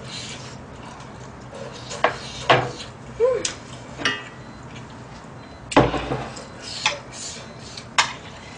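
Chopsticks and a spoon clinking against a bowl while eating: about seven separate clicks, spaced roughly a second apart.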